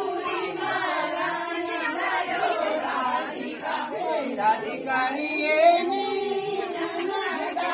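A group of voices singing a Kumaoni jhoda (chanchari) folk song together in chorus, the chant-like melody carried steadily by many singers at once.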